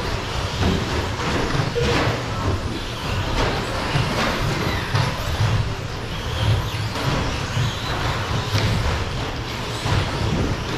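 Several electric radio-controlled short course trucks racing on a carpet track: faint whines from the motors rising and falling, tyres scrubbing, and frequent clicks and clatter as the trucks hit the track boards and each other.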